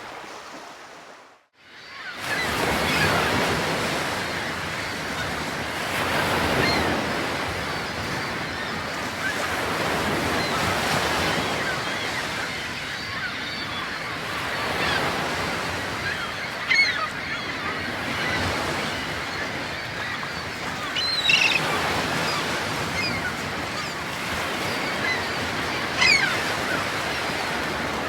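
Ocean surf washing steadily, with a few short bird calls in the second half. The sound fades out and back in about a second and a half in.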